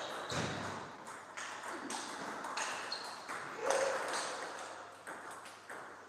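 Table tennis rally: a celluloid ball clicking off the rackets and the table, about one stroke every half second.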